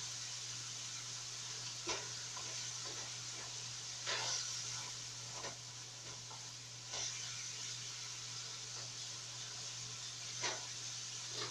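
Food sizzling in a pan on a stovetop while a utensil stirs it, with a few short scrapes and knocks against the pan.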